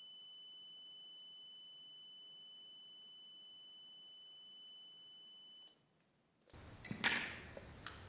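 Digital multimeter's continuity buzzer giving one steady high-pitched beep while its leads are closed through the switch at near zero ohms; it cuts off sharply after about six seconds. Near the end, wires and a small switch are handled on a table, with a sharp click.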